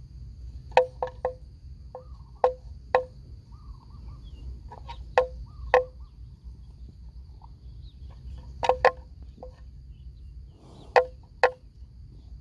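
About a dozen sharp, hollow knocks at irregular intervals, several in quick pairs, each with a short ringing pitch, over a steady high whine.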